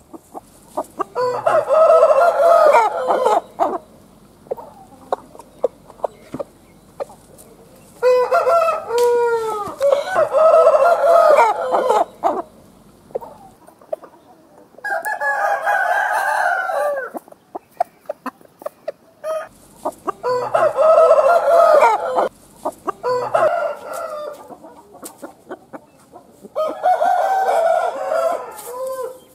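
Roosters crowing, a long crow every few seconds, with short sharp clicks in the gaps between crows.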